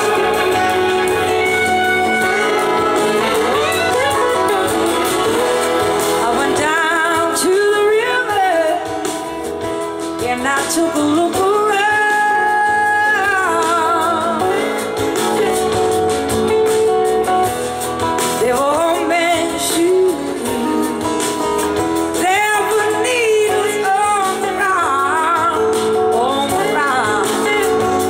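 Live blues-rock band with an electric slide guitar taking the lead over organ and drums. The guitar plays gliding notes with a wide, wavering vibrato.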